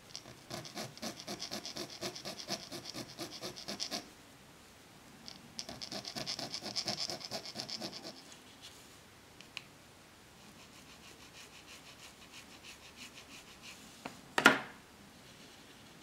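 Metal hand file scraping across a small 3D-printed plastic part in quick back-and-forth strokes, in two louder bouts and then a fainter one, smoothing the printed surface. Near the end comes one short, loud burst.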